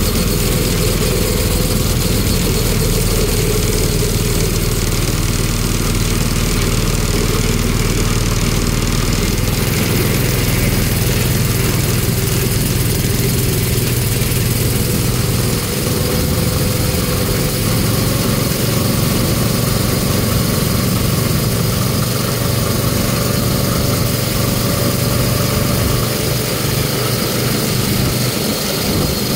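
Small gasoline engine of a mini NASCAR-style go-kart running steadily while driving along a paved road, with a rush of road and wind noise over it; the engine note shifts slightly about ten seconds in.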